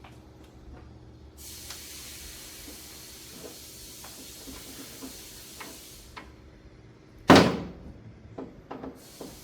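A steady hiss that starts and stops abruptly, lasting about four and a half seconds, then a single loud knock about seven seconds in. Light knocks and clinks of parts and tools being handled are scattered around it.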